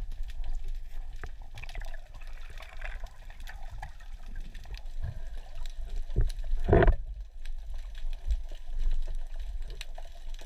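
Underwater sound picked up through a camera housing: a steady low rumble of moving water with scattered small clicks and knocks, and one louder rush of noise about seven seconds in.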